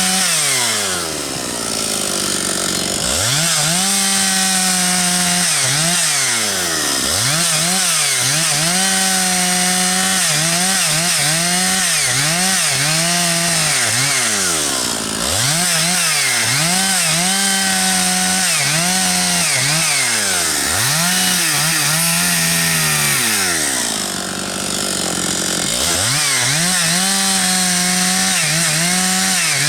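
Husqvarna 272XP two-stroke chainsaw cutting firewood logs, running at high revs. Its pitch repeatedly drops away as the throttle is let off and climbs back, with several quick throttle blips in between.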